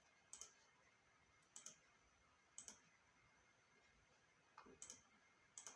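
A handful of faint computer mouse clicks, some in quick pairs, over near silence.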